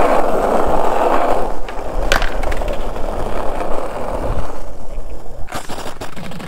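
Skateboard wheels rolling over rough asphalt, a loud steady gritty rumble, with one sharp clack about two seconds in.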